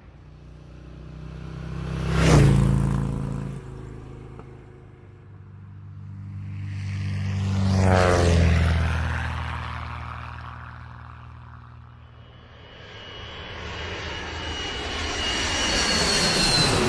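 Engine noise sweeping past three times, each pass swelling and fading: a sharp peak about two seconds in, a slower pass around eight seconds with a sweeping, phasing sound, and a third pass building toward the end with a high whine.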